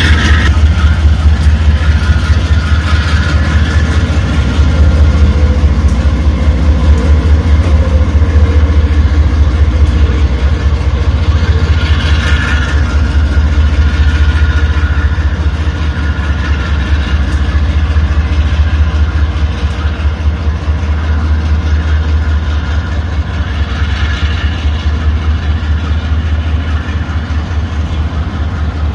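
Diesel-electric locomotive engines running with a deep, steady rumble as a consist of GE AC44i locomotives on test runs approaches along the yard track.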